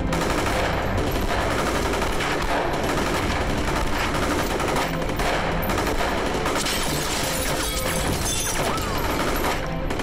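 A long volley of automatic gunfire from a row of guns firing together: a dense, continuous rattle of shots that starts abruptly and eases off near the end.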